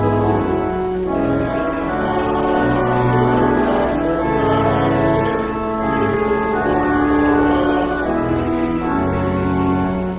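Church organ playing slow, sustained chords, the notes held steady and changing every second or two.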